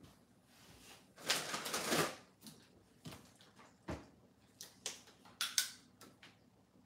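Small handling noises: a rustling scrape lasting about a second, then a string of light clicks and knocks.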